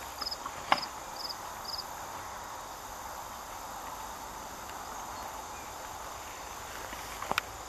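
An insect chirping: short, high, triple-pulsed chirps about two a second that stop about two seconds in, over a steady outdoor hiss. A sharp click sounds just under a second in and another near the end.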